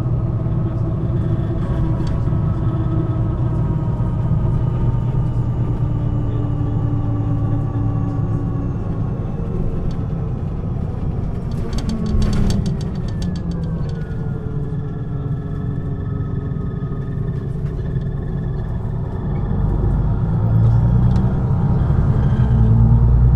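MAN NG 313 articulated city bus's diesel engine running, its pitch falling slowly as the bus slows. About halfway there is a short run of rapid clicks, and then the engine pitch rises as it pulls away, growing louder near the end.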